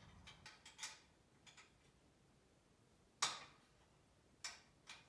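Light metallic ticks and clicks of a socket ratchet and nuts being worked on a steel saw-stand frame: a quick run of small ticks in the first second, then three separate sharper clicks, the loudest a little past the middle.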